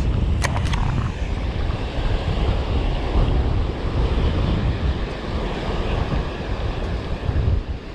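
Wind buffeting the microphone in a heavy, uneven rumble over the wash of breaking surf, with a few sharp clicks about half a second in.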